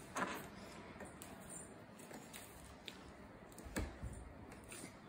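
Faint clicks and light knocks of small plastic foosball parts being handled and fitted onto the table's steel rods. The loudest knock comes a little under four seconds in.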